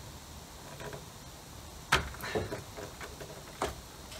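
Hoses and yellow plastic push-in plugs being handled on a car's coolant expansion tank: one sharp plastic click about two seconds in, then a few lighter clicks and knocks.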